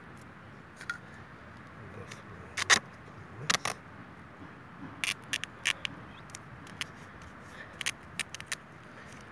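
Grey duct tape being pulled off its roll in short, sharp crackling rips, in scattered clusters with the loudest a little under three seconds in.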